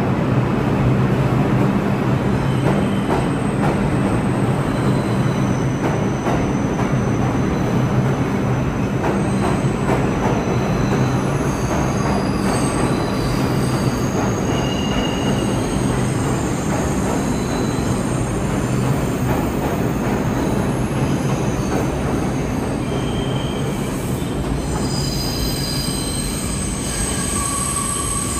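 R142-family New York City subway train running on the track with a steady loud rumble and a low hum. High-pitched wheel squeal comes in around the middle and grows stronger near the end.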